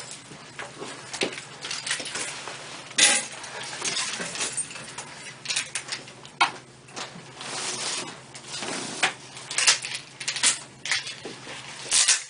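Handling noises during a chiropractic treatment: irregular rustles and light clinks, with sharper ones about 3 seconds in, around 10 seconds in and just before the end.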